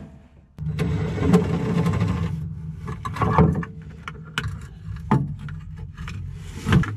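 Cordless impact driver running for about two seconds, backing out a bolt. It is followed by several clunks and scrapes of metal as the bolted-on part is worked loose.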